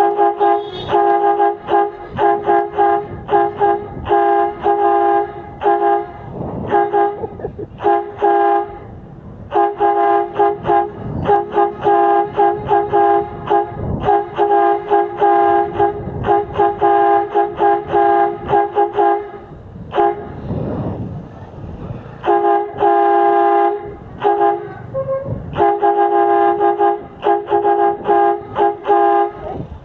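A 12-volt compressor-driven air horn with a trumpet, blaring at a steady pitch in many quick repeated honks, with a few longer blasts and brief pauses between runs.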